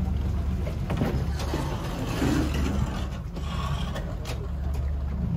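Motorboat engine running with a steady low drone. A rush of noise and a few knocks rise over it about a second in and fade by about four seconds.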